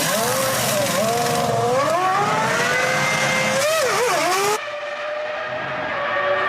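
Formula One car's 3-litre V10 engine screaming at high revs, pitch climbing through the gears, then several quick downshifts around four seconds in. The sound then changes suddenly to a duller, steadier engine note.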